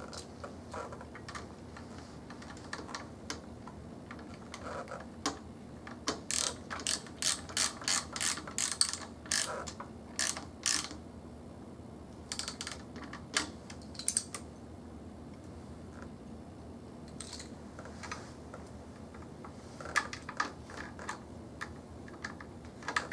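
Ratchet wrench clicking in short runs while the bolts on the wheelchair battery terminals are tightened down, with scattered single clicks from handling the tool and parts.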